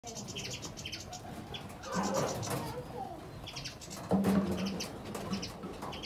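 A mixed flock of caged finches, mostly European goldfinches, twittering with many quick, high chirps that overlap. A louder, lower-pitched sound of unclear source comes in about two seconds in and again about four seconds in.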